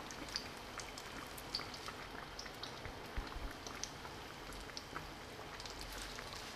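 Crumb-coated chicken bread patties shallow-frying in hot oil: a faint, steady sizzle with frequent small crackles and pops.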